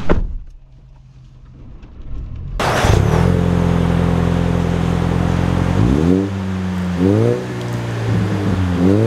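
A truck door shuts with a thud, and after a quiet moment the 2024 Toyota Tacoma's 2.4-litre turbocharged four-cylinder engine runs steadily. It revs up briefly three times, about three, four and six seconds later.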